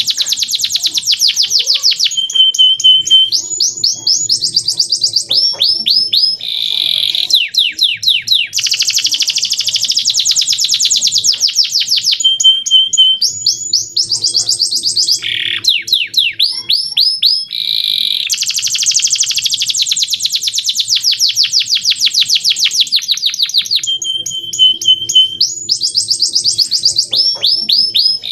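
Male domestic canary singing continuously, a long song of very fast trills of repeated notes, rapid falling sweeps and short held whistles. The same song phrase comes round about every nine seconds.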